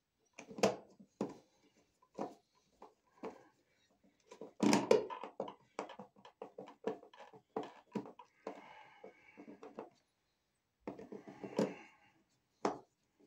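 Irregular clicks, knocks and scraping as an electrical receptacle and its wires are handled, pushed into a wall outlet box and screwed down. The loudest cluster of knocks comes about five seconds in, with a rougher scraping stretch a few seconds later.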